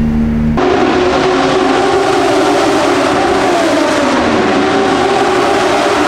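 Moto2 race motorcycles' Triumph three-cylinder engines running at high revs past the pit wall: a loud, sustained engine drone whose pitch wavers slightly. It starts abruptly about half a second in.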